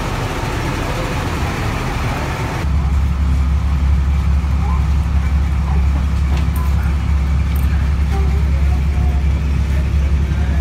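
Yutong airport shuttle bus running: at first the noise beside the parked buses, then, after a cut about two and a half seconds in, the steady low rumble inside the bus cabin, with passengers' voices faint over it.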